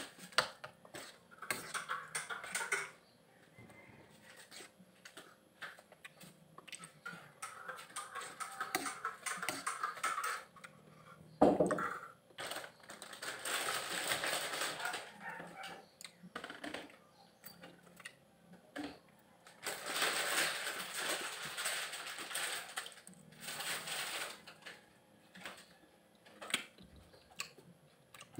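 Close-miked eating sounds: a metal spoon clinks and scrapes in a ceramic bowl of oatmeal, with many small taps, and there is chewing and slurping in between. Near the end, fingers crack open lansones peels.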